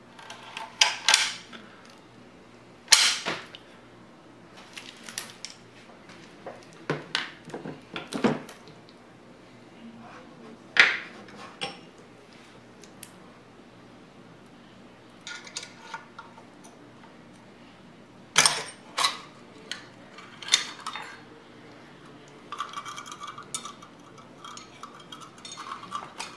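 Sharp metallic clicks and clacks of an FN 49 rifle's steel parts being handled and worked during disassembly, a dozen or so irregular knocks, some duller, with a stretch of lighter rattling near the end.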